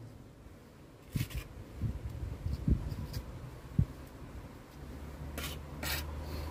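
A small pointing trowel scraping and tapping as mortar is pressed into the joints between cobbles and bricks: a few scattered light knocks and short scratches.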